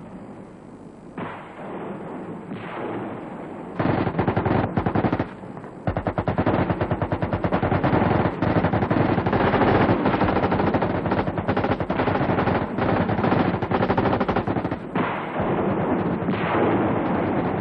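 Automatic weapons fire in a firefight. Rapid bursts of gunfire begin about four seconds in, pause briefly, then run on densely and almost without a break, easing slightly near the end.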